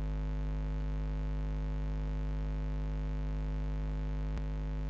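Steady electrical mains hum with a buzzy stack of overtones, and a single short click near the end.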